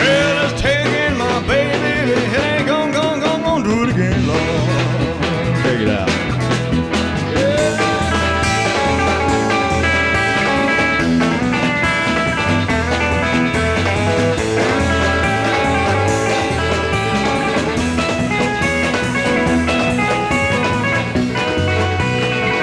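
Live rock and roll band playing an instrumental passage, electric guitar over bass and drums, with bending notes in the first few seconds. Heard from a soundboard recording of the show.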